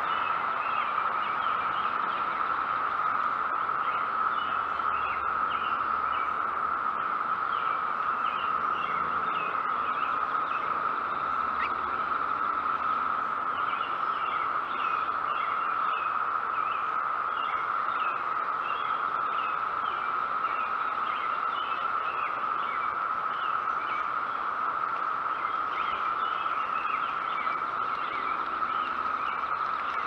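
Steady, unbroken drone of a chorus of 17-year periodical cicadas, with frequent short bird chirps over it.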